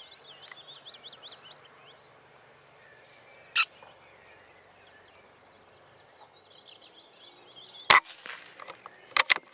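Birdsong in the background, cut by two sharp single cracks, one about three and a half seconds in and a louder one about eight seconds in, then a quick run of sharp knocks near the end.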